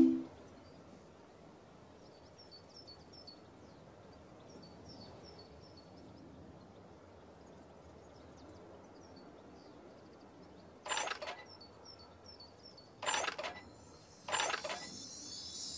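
Faint birdsong over quiet outdoor ambience. Near the end come three short bursts about a second or two apart as the cartoon tap is worked, then a high glittering shimmer as the tap pours out magic sparkles.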